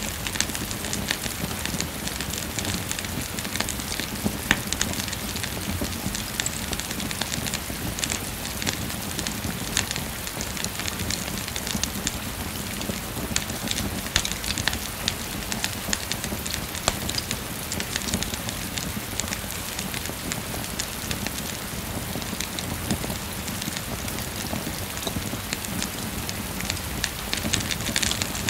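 Steady rain falling, with a wood fire in a fireplace crackling and popping in sharp, irregular snaps throughout.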